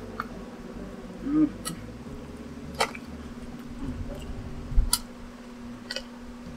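Mouth sounds of eating fried chicken: about five sharp smacks and clicks a second or so apart, a short hummed "mm" about a second and a half in, and a few soft low thumps near the middle, over a steady low hum.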